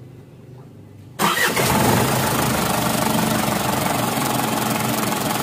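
Isuzu 4HG1 four-cylinder diesel engine starting about a second in and settling into a steady idle, running without the misfire that clogged injector nozzle tips had caused.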